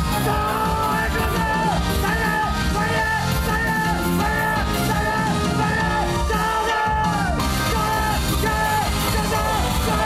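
Japanese idol group singing a song live over loud, beat-driven backing music.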